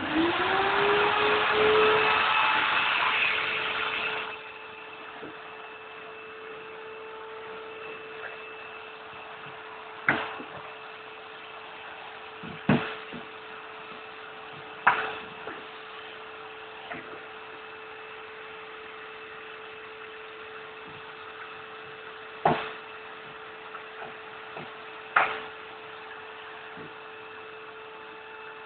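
A vacuum dust extractor switching on and spinning up, its pitch rising over about two seconds, then running on steadily with a hum while it draws dust through a hand sanding block. A few short sharp knocks break in at intervals.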